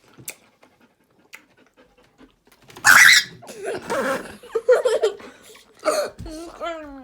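A dog making loud, breathy noises close to the microphone, starting suddenly about three seconds in after a quiet start, with a short gliding voice-like sound near the end.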